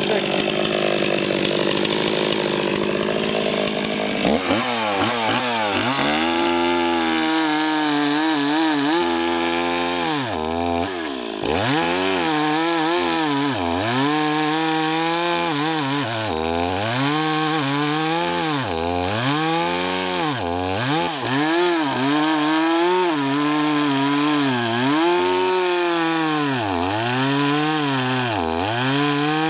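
Stock Stihl MS 260 two-stroke chainsaw, with its factory muffler and spark-arrestor screen, running at full throttle and cutting through a hardwood log. About four seconds in the engine note changes sharply. From then on its pitch sags and recovers again and again as the chain loads up and clears in the cut.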